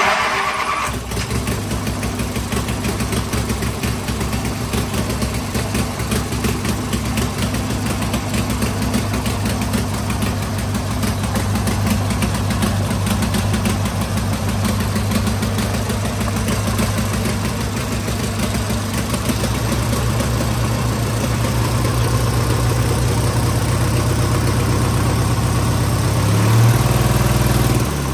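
Ride-on garden tractor's air-cooled twin-cylinder engine catching at the turn of the key and settling into a steady idle. The rebuilt engine runs after standing for a year. Near the end it revs up briefly.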